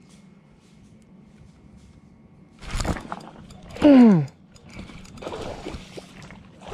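A sudden rush of noise about two and a half seconds in as the angler strikes on a bite. About a second later comes a loud, falling vocal exclamation, the loudest sound, and then softer splashing as the fish is hooked.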